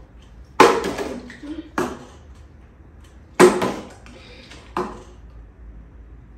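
Plastic water bottle knocking down onto a stone tabletop four times, sharp knocks a second or so apart, the first and third the loudest.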